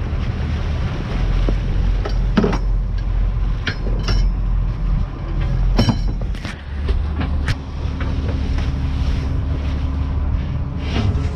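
Fishing boat under way at sea, with a steady low engine rumble and water washing along the hull. Several sharp knocks and clanks break in, and a steady hum joins a little past halfway.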